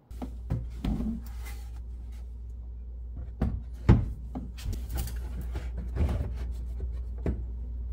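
A 3D-printed carbon-fibre PETG center console being fitted by hand onto a pickup's bare cab floor: a series of plastic knocks, clunks and scrapes, the loudest about four seconds in, over a steady low hum.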